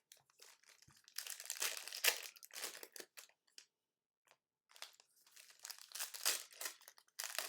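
Packaging wrapper crinkling and tearing as it is handled, in two bouts of irregular rustling with a short pause between.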